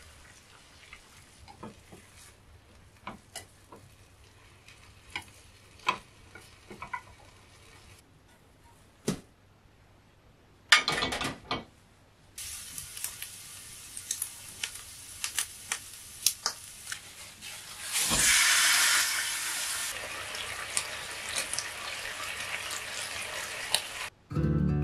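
Home-kitchen cooking sounds: scattered clicks and taps of utensils at first, then food frying in a pan with a steady sizzle and frequent clicks. The sizzle swells louder for a couple of seconds about three-quarters of the way through.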